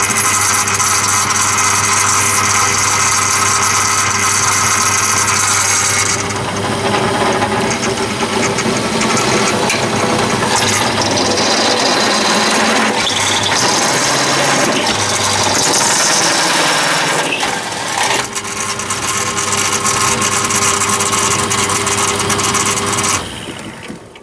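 Bench drill running at 620 RPM, driving an HRC89 cobalt step drill through thin mild steel sheet: a steady motor hum with scraping cutting noise and a rattle from the drill's guard. It starts abruptly and dies away near the end.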